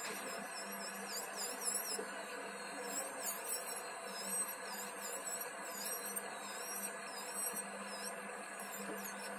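Electric nail drill whirring steadily as a carbide bit grinds gel polish off a fingernail.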